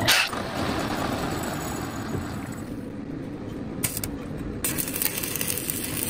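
A lathe running steadily, a continuous even machine noise, with a short loud burst right at the start.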